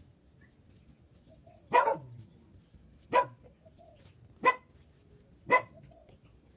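A dog barking four times, about a second and a half apart.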